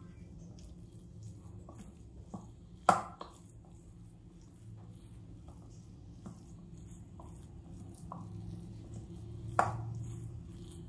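A spoon stirring and mashing boiled potato and peas in a glass bowl: soft scrapes and light taps, with two sharper knocks of the spoon against the bowl, about three seconds in and near the end. A faint low hum runs underneath.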